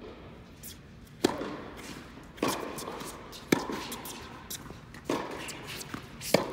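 Tennis ball struck back and forth by rackets in a rally, five sharp pops a second or so apart with softer taps between, ringing in a large indoor hall.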